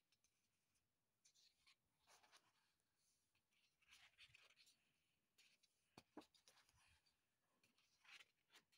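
Faint rustling of sketchbook paper pages being handled and turned, in several short bursts, with a sharp tick about six seconds in.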